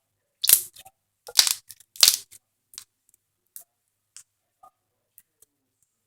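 Slime being squeezed and pulled apart by hand: three loud, sticky crackles in the first two seconds, then a scatter of small faint pops and clicks.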